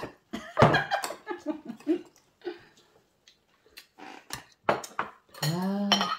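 Glass and tableware clinks at a dinner table as soju is poured from a glass bottle into a shot glass; the sharpest, loudest knocks come about half a second in. Near the end a drawn-out, pitch-arching vocal 'mmm' from a person who has just downed a shot of soju and finds it bitter.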